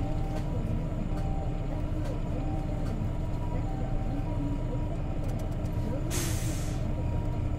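Isuzu Erga CNG city bus heard from inside the cabin, its natural-gas engine and drivetrain running with a steady low rumble. About six seconds in comes a short, sharp hiss of compressed air from the bus's air system, lasting under a second.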